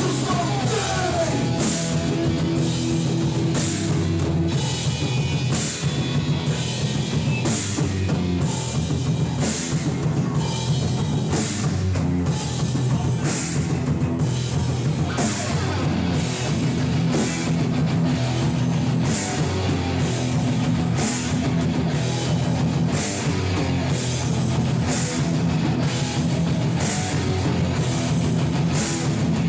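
Hardcore punk band playing live with distorted electric guitar, bass and a drum kit. A cymbal is struck a little more than once a second, in a steady driving rhythm.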